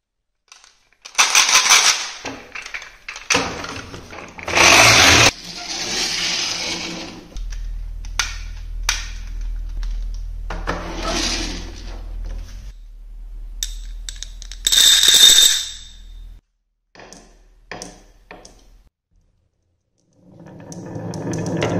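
Glass marbles rattling and clattering in the plastic bed of a toy dump truck as it is handled, then a plastic toy truck rolling on a tabletop with a low rumble and scattered clicks. Music starts near the end.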